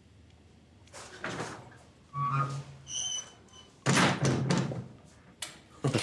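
Toilet-stall door closing with a thunk near the end, after a few other knocks and soft sounds.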